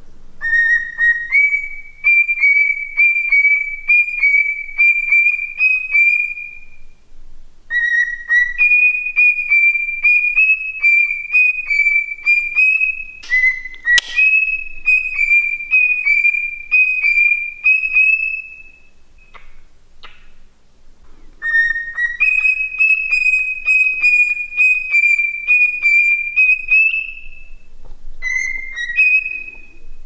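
Cockatiel whistling in four long phrases of rapid repeated notes on a high, nearly level pitch, each phrase rising slightly at its end, then a few short notes near the end. A single sharp click comes about 14 seconds in.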